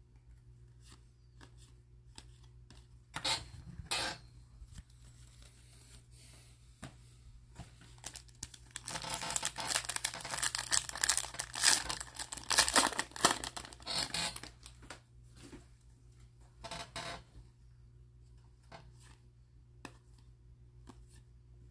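Shiny wrapper of a Donruss baseball card pack being torn open and crinkled by hand. There is a long spell of dense crackling tearing in the middle, and a few short crinkles before and after it.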